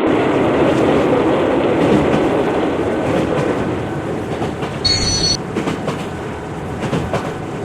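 Train running on the rails: a steady rumble with the clickety-clack of wheels over rail joints, growing gradually quieter. About five seconds in there is a brief high-pitched squeal.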